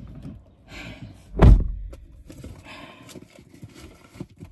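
A single heavy thump about a second and a half in, among faint rustling and handling noise.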